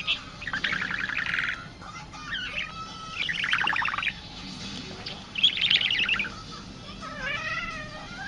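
Budgerigar chattering and warbling: three loud, rapid rattling bursts with softer warbled notes between them, and a wavering, up-and-down warble near the end.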